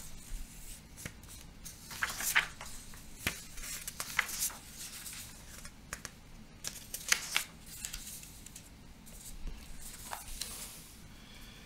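Printed paper handout pages being leafed through: a series of short paper rustles and swishes, with a few light taps in between.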